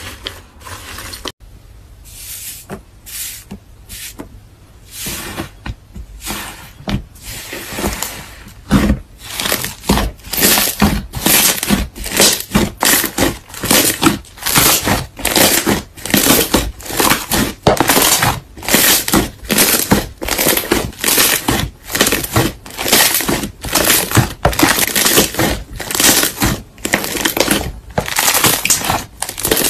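Thick slime squeezed and pressed by hand, crackling and popping with each press. The presses are sparse at first, then from about nine seconds in they come in a steady rhythm of about two a second.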